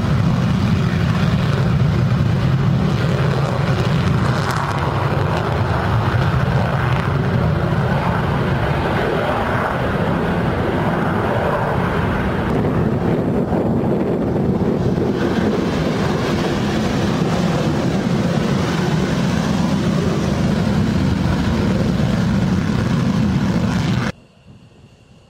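F-15E Strike Eagle taking off in afterburner: a loud, steady jet roar from its twin afterburning turbofans as it runs down the runway and climbs away. The roar cuts off suddenly near the end.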